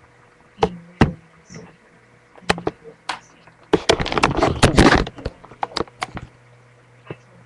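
Handling noise from a webcam being moved about: scattered sharp clicks and knocks, then a dense flurry of knocking and rustling about four to five seconds in, over a faint low hum.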